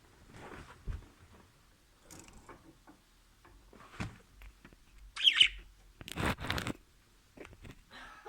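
Pet budgerigar chirping and chattering in short, scattered sounds, with one loud chirp about five seconds in followed by a harsher, scratchy burst.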